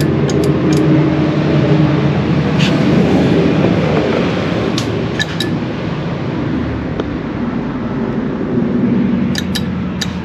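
A steady low mechanical hum and rumble, with a few light clicks and taps scattered through it.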